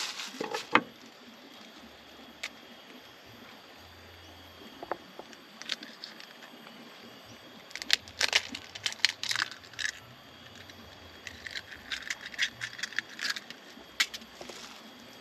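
Egg being cracked and added to a chopped mushroom mixture: scattered light clicks and taps, with quick runs of clicks about halfway through and again later.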